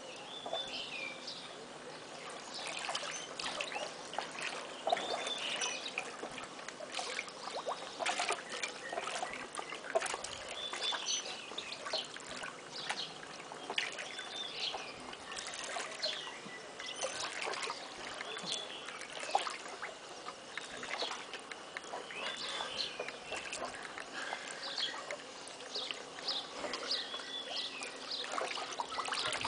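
Pool water splashing, sloshing and trickling as a swimmer paddles and wades through it, with short high chirps throughout.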